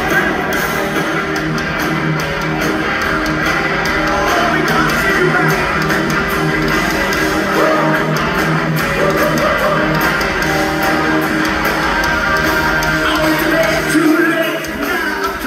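Live hard rock band playing loudly: electric guitars, bass and drums, heard from the audience in a large hall.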